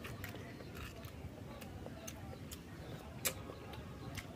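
Scattered soft clicks and smacks of eating by hand: fingers picking meat from a cooked crab shell and mouth chewing, with one sharper click about three seconds in.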